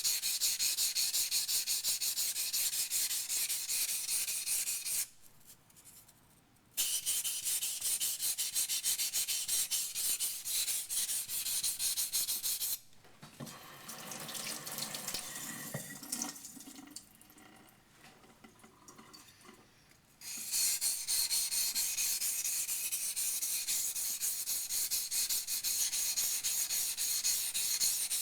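Yanagi blade being stroked rapidly back and forth on a 400-grit Nubatama waterstone, a wet gritty scraping while grinding the bevel. The strokes stop briefly about five seconds in, then for several seconds in the middle, where a quieter watery sound is heard.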